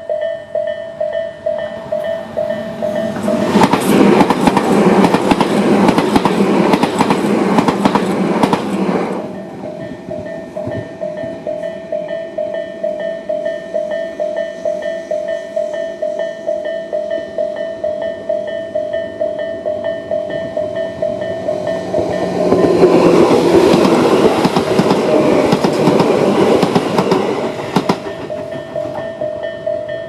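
Electronic level-crossing bell (Tobu's standard crossing sound) ringing in steady repeated dings while the crossing is closed. Two trains rattle over the crossing in turn, one a few seconds in and another about two-thirds of the way through, each louder than the bell while it passes.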